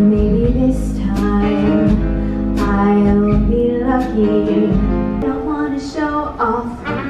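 Live stage-show music: a woman singing into a microphone with a band accompanying her, holding long notes.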